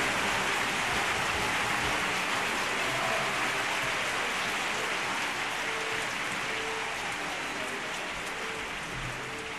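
Large crowd cheering and clapping. It makes a dense, even, rain-like noise with a few single voices briefly standing out, and slowly fades.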